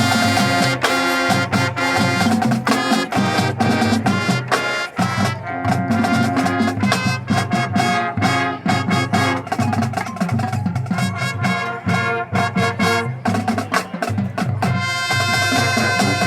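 Marching band playing: brass holding pitched notes over a steady beat of drums and percussion.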